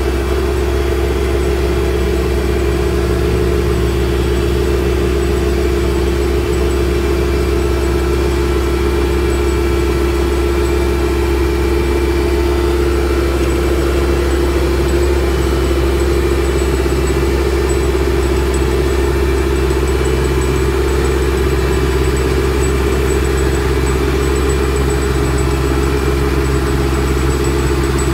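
A large engine running steadily at an even, unchanging speed, a constant low hum, typical of heavy construction machinery.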